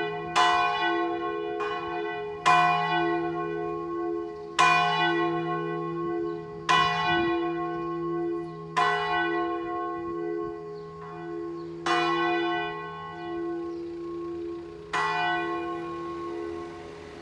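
The large tenor bell, cast by Lera, swinging full-circle in the Italian 'distesa' style. Its clapper strikes about every two seconds, with a fainter extra stroke early on. The strokes space out as the swing slows, and after the last one near the end the bell is left humming.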